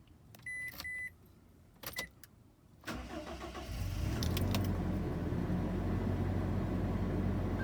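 Two short electronic beeps and a click, then about three seconds in the Toyota Camroad's engine cranks, starts and settles into a steady idle, running on its newly fitted main battery.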